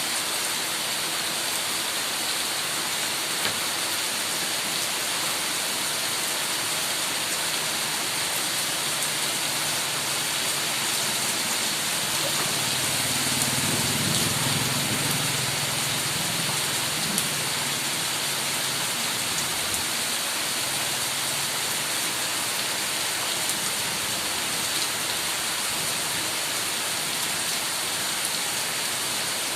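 Heavy rain falling steadily, a dense even hiss. Around the middle, a low rumble swells and fades over several seconds.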